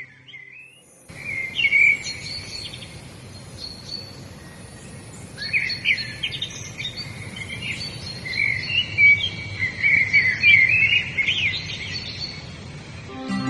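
Several songbirds chirping and singing in quick short phrases over a steady outdoor hiss, with a thin high steady whine that stops about nine seconds in.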